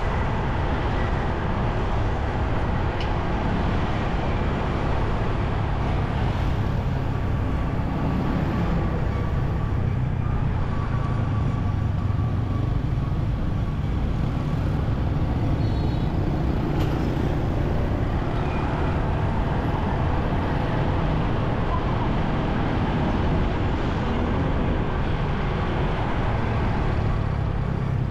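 Road traffic heard from a moving motorcycle on city streets: a steady low rumble of engines and road noise.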